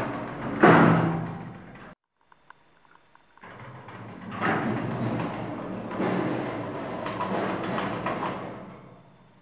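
Old passenger lift's sliding steel doors shutting with a rumble and a loud bang as they meet. After a short quiet with a couple of faint clicks, the doors rumble and rattle open again for several seconds, fading out near the end.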